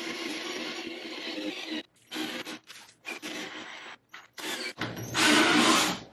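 Cordless drill turning a converted brace auger bit into a thick wooden shelf blank. The drill runs steadily at first, then in short stop-start pulls of the trigger, with a louder, rougher burst near the end as the bit is backed out of the hole.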